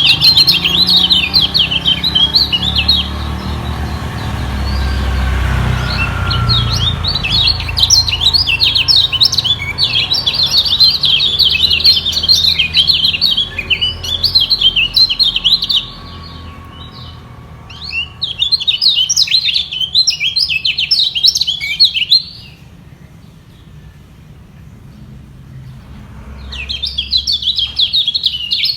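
Kecial kuning white-eyes singing, rapid high chirping trills in bouts that break off and start again several times, as rival birds sing against each other. A steady low rumble runs underneath.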